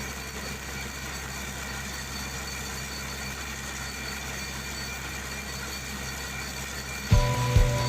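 An engine running steadily with a low drone. About seven seconds in, a much louder mechanical clatter starts suddenly, with repeated sharp knocks.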